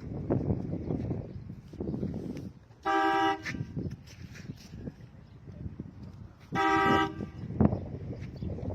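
A vehicle horn sounds two short blasts, about three seconds apart, over low background rumble.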